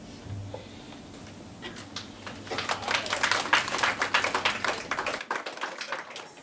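Small audience clapping. It starts about one and a half seconds in, grows, then dies away near the end.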